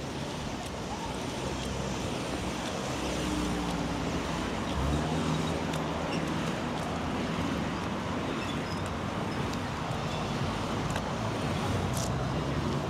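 City street traffic: steady road noise with a motor vehicle's engine running close by, growing louder over the first few seconds.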